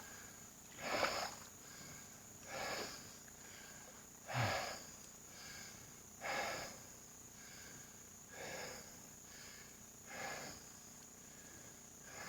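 A person breathing audibly near the microphone, slow noisy breaths about every two seconds, over a steady high insect buzz.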